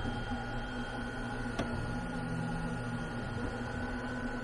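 Two Trees desktop laser engraver running a preview, its stepper motors driving the laser head around the outline of the job, over a steady hum. One sharp click about one and a half seconds in.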